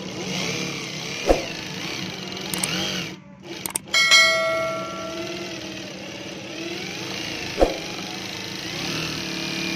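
Juki DDL-555 industrial lockstitch sewing machine, driven by a servo motor, running and stitching steadily, with two sharp clicks, about a second in and near the end. About four seconds in, a chime from an added subscribe-button sound effect rings and fades.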